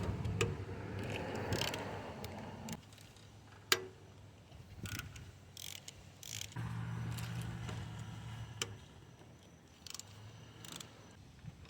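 Socket ratchet clicking and tools clinking on metal as bolts are loosened from a Toyota 2AZ-FE engine's timing chain cover. Partway through, a steady low hum lasts about two seconds.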